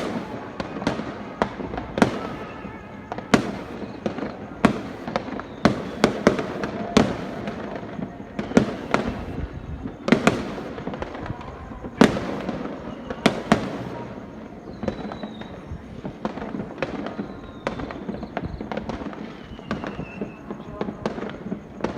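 Aerial fireworks bursting overhead in a rapid, irregular series of sharp bangs, densest in the first two-thirds and thinning out after about fourteen seconds.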